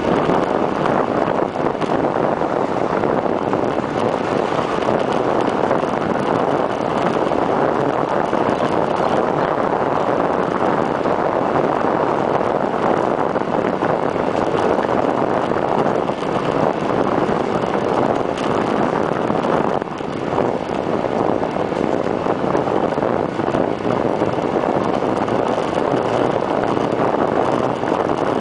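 Steady rush of wind over a camera microphone mounted on a bicycle's stem during a fast road descent, with a brief dip about twenty seconds in.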